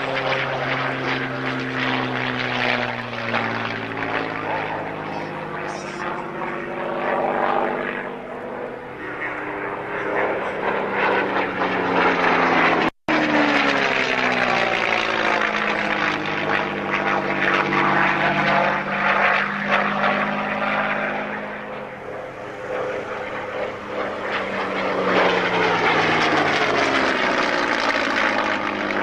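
Single-engine propeller warbird flying low passes. Its piston engine's drone swells as it approaches and drops in pitch as it goes by, more than once, with a brief cut-out in the sound about halfway through.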